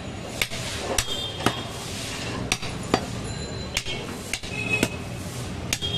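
A heavy butcher's knife chopping goat meat and bone on a wooden chopping block: sharp, irregular knocks, roughly one or two a second.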